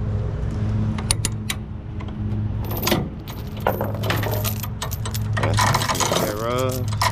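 Steel tie-down chain clinking and rattling as it is handled, link striking link in irregular metallic clinks. A steady low engine hum runs underneath, and a brief wavering tone sounds near the end.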